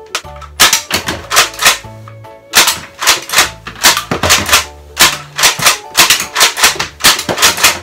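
Nerf N-Strike Longstrike CS-6 spring blaster being primed and fired again and again: a quick, irregular string of sharp plastic clacks over background music.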